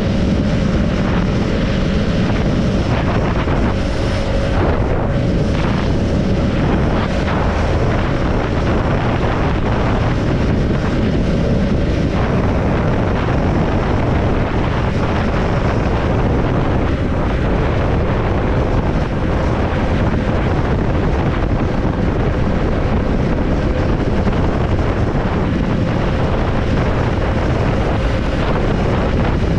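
Triumph Scrambler 400X motorcycle's single-cylinder engine running at a steady pace on the road, with wind rushing over the microphone.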